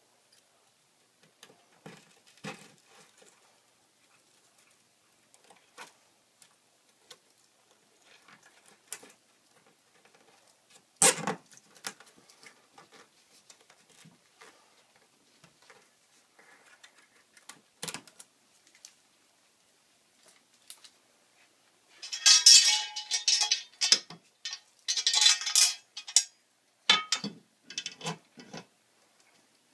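Scattered light clicks and ticks from plastic Zip Toggle drywall anchors being fitted, with two sharp clicks about 11 and 18 seconds in. Near the end comes a loud burst of metallic clattering and rattling as a metal TV wall-mount bracket is handled against the wall.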